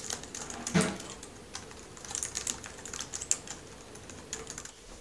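Typing on a computer keyboard: quick, irregular key clicks, with one louder knock about a second in.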